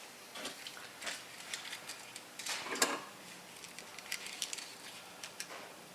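Faint scattered clicks and light knocks, with a slightly louder knock about two and a half to three seconds in.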